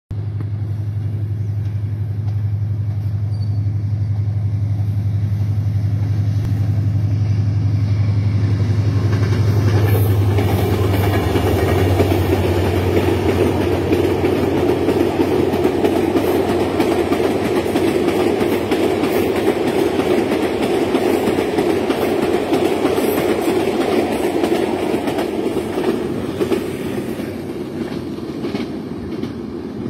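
Bangladesh Railway intercity express passing at speed: a steady low engine hum from its diesel locomotive for the first ten seconds or so, then the coaches rushing by with a rattling clatter of wheels on the rails, which eases off near the end as the train moves away.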